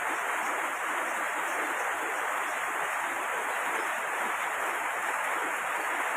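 Heavy rain falling, a steady unbroken hiss.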